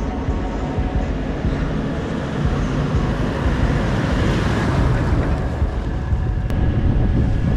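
Toyota Land Cruiser 79 series driving past, its engine and tyre noise swelling about halfway through as it passes close by, with wind rumbling on the microphone.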